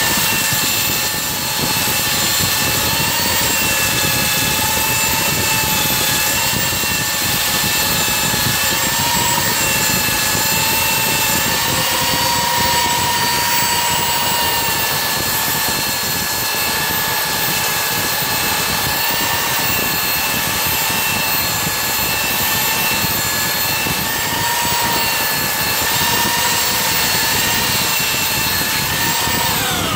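Handheld electric belt sander running continuously against the end grain of laminated wooden boat frames, a steady whine that wavers slightly in pitch as it works.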